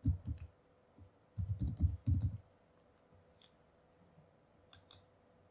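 Computer keyboard typing in two short runs of keystrokes, then two or three sharp clicks near the end, a mouse button clicking.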